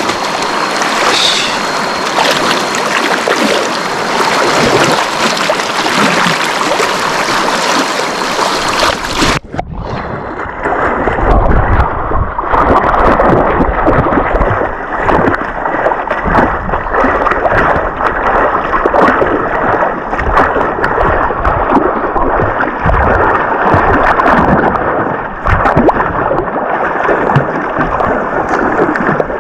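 Loud, steady rush of a swollen river. About nine seconds in, the sound cuts to a duller, more muffled water sound with low rumble and many short splashes and knocks.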